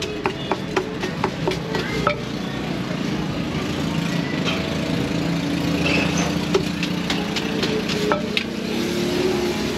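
Wooden pestle pounding in a clay mortar, quick knocks about four a second that thin out after about two seconds into scraping and mixing with a spoon and the pestle. Street traffic runs underneath as a steady low rumble.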